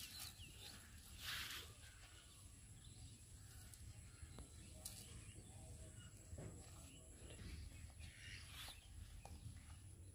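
Near-silent outdoor ambience: a faint low steady rumble with a few soft rustles, the loudest about a second in.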